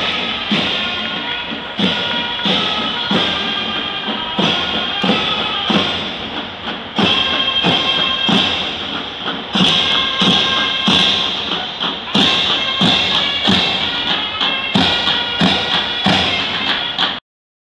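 Ottoman mehter marching band playing: a wind melody over a slow, steady march beat of big drums with cymbal clashes. The music cuts off suddenly near the end.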